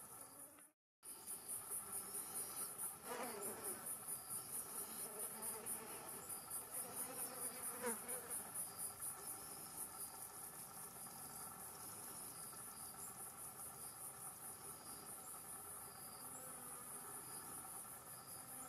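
Insects singing outdoors: a steady, high-pitched, rapidly pulsing chorus. It drops out for an instant about a second in, and two faint sounds falling in pitch pass over it a few seconds in and again near the middle.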